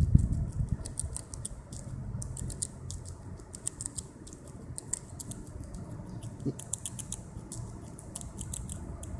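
Grey squirrel gnawing and chewing a nut held in its forepaws, heard close up as fast, irregular clusters of crisp crunching clicks.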